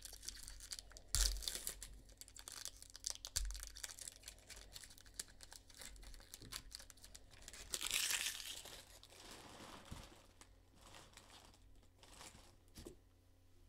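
A baseball card pack's wrapper being torn open and crinkled by hand. It is faint, with the loudest crinkling about eight seconds in.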